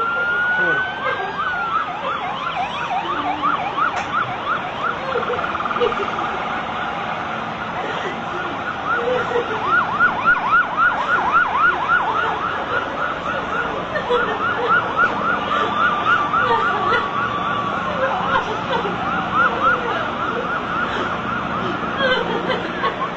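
Emergency vehicle sirens sounding together: a slow wail rises and falls at the start, then rapid yelping sweeps run at about four a second, with one longer held tone partway through.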